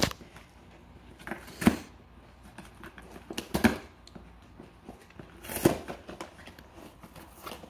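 Chihuahua tearing open a cardboard box with teeth and paws: cardboard and paper crackling and rustling, with three louder crunches about two seconds apart.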